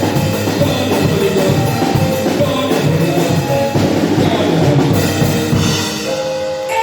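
Band music with a drum kit keeping a steady beat, bass drum and snare under pitched instruments.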